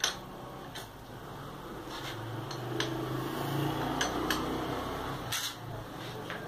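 A hand tool working on the bolts at the top of a single-cylinder motorcycle engine's cylinder head: several scattered metallic clicks with light scraping, over a low steady hum.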